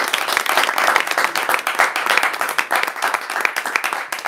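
An audience applauding, many hands clapping steadily.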